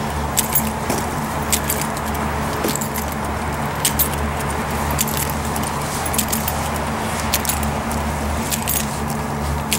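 Light metallic jingling and clicks in an uneven rhythm, from gear carried by someone walking, over a steady low mechanical hum.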